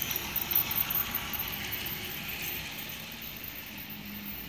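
Toy steam train set passing close by: its wheels click and rattle over the plastic track and its motor whirs. The clicking is sharpest in the first second and then fades to a steady hiss as the train moves off.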